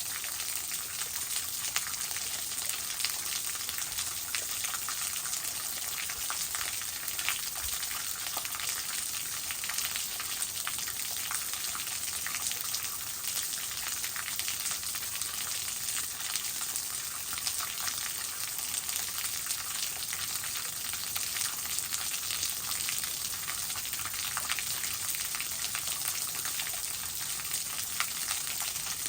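Waterfall splashing: a steady hiss of falling water with a dense, fine crackle of droplets.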